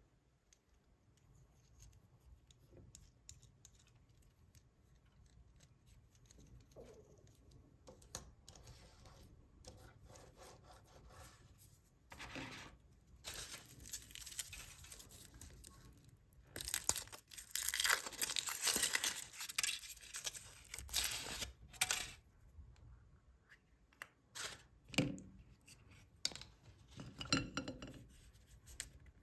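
Foil wrapper of a chocolate egg being torn open and crinkled in bursts, loudest about two thirds of the way through, with a few small clicks and taps near the end.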